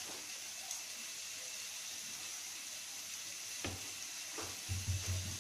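Steady faint hiss, with two soft knocks in the second half and a few low thumps near the end as a ball of dough is dusted in flour and handled on a steel plate.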